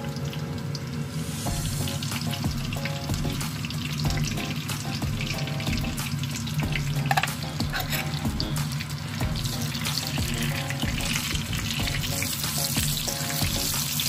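Eggplant and carrot omelet frying in hot oil in a pan: a steady sizzle full of small crackles and pops.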